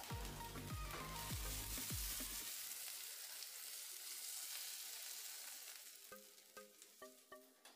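Sliced onions sizzling in oil in a frying pan, with a steady hiss that fades out about six seconds in as the pan is lifted and the onions are tipped onto a plate. Background music with a heavy beat plays over the first two seconds or so, and soft plucked notes come near the end.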